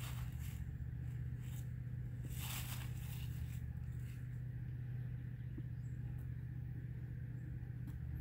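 Steady low mechanical hum, with a brief scraping rustle about two and a half seconds in.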